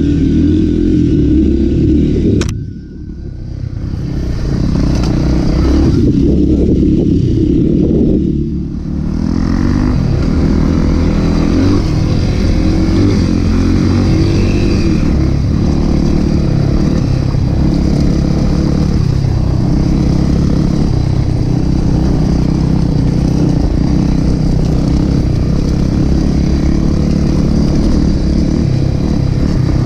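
Background music that cuts off abruptly about two and a half seconds in, followed by a trail motorcycle's engine running as it is ridden, its pitch rising and falling.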